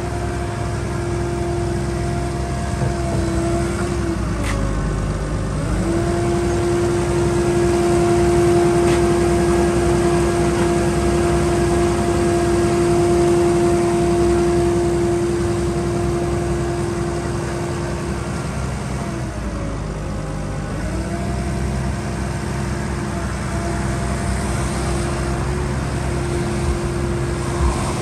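Dynapac SD2500CS tracked asphalt paver's diesel engine running steadily, with a strong steady whine over it. The whine sags in pitch and recovers twice, about four seconds in and again about nineteen seconds in.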